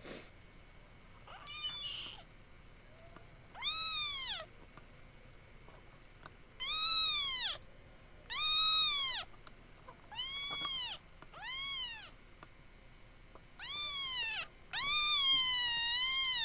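Young grey kitten meowing about eight times, high-pitched calls that each rise and fall in pitch, the last one the longest.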